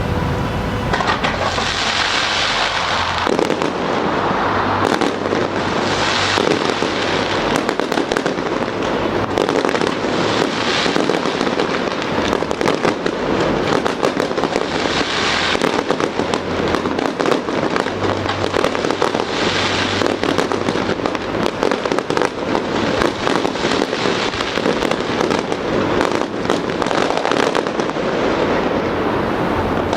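Fireworks display: continuous rapid crackling and popping of bursting shells, with short hissing rushes every few seconds.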